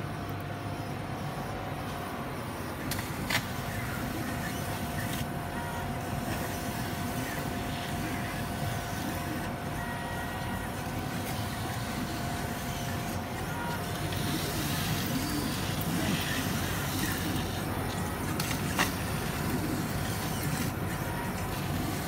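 Kasu laser cutting machine running: a steady hum and hiss of its fans and motors with faint steady tones, brighter in the second half, and two sharp clicks.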